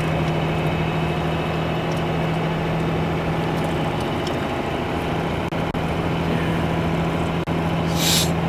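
Cummins diesel pickup truck cruising on the highway, heard from inside the cab: a steady low engine hum under road and tyre noise. The sound briefly cuts out twice in the second half, and a short hiss comes near the end.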